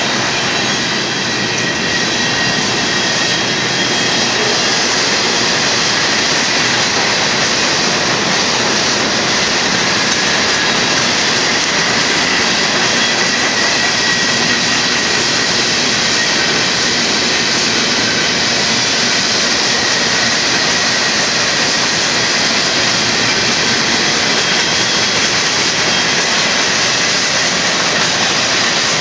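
Cars of a Union Pacific freight train rolling past close by: a steady, loud rumble and rattle of steel wheels on rail as boxcars and centerbeam flatcars go by.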